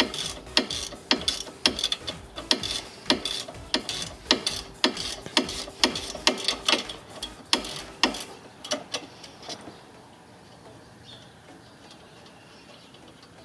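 Ratcheting wrench clicking as it backs the 15 mm nut off the top of a front sway bar link, about two clicks a second. The clicks stop about eight seconds in, with a few fainter ones after.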